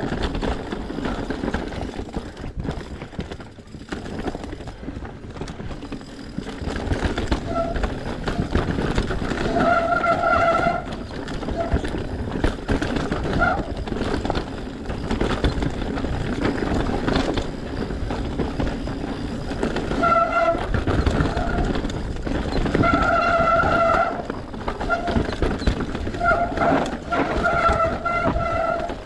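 Mountain bike descending a dirt singletrack: tyres rolling and skidding over packed dirt and roots, with the bike rattling over bumps. Short whines at a fixed pitch cut in and out several times, at about 7, 10, 13, 20, 23 and 26 to 28 seconds in.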